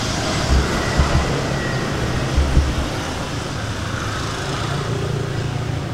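Steady low background rumble, with a few dull low thumps in the first three seconds.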